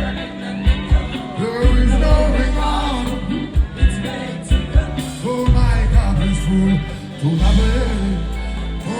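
Live reggae band playing with singing over held deep bass notes and sharp drum hits.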